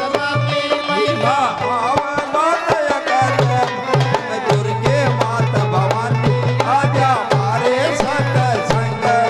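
Live devotional folk music: a dholak drum plays a rhythm under a wavering, gliding melody line. The drum beat becomes steadier and fuller about three seconds in.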